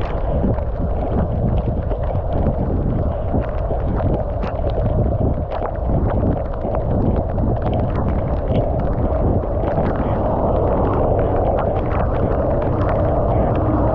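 Wind buffeting the microphone of a camera riding on a moving road bike: a steady, loud rumble with many scattered sharp ticks and taps over it.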